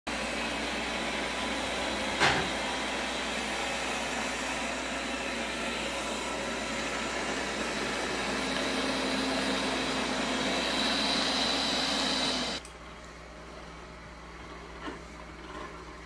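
Liectroux XR500 robot vacuum running: a steady suction rush with a motor whine that grows stronger in the last few seconds, and a sharp click a couple of seconds in. It cuts off abruptly about twelve and a half seconds in, leaving quiet room tone.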